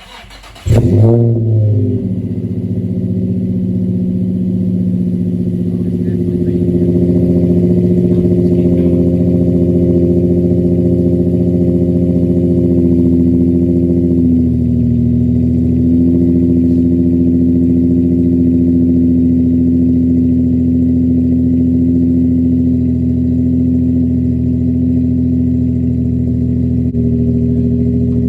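Infiniti G35's 3.5-litre VQ V6 cranking and catching about a second in with a loud flare, then idling steadily through test pipes with the catalytic converters deleted. The idle drops slightly in pitch about halfway through.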